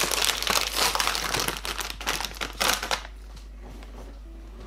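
A Chazz crisp packet crinkling loudly as it is opened and handled by hand. The crackling stops about three seconds in.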